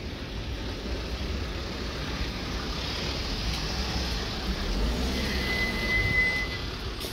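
Steady outdoor traffic rumble with wind buffeting the microphone. A single steady high-pitched beep lasting about a second sounds about five seconds in.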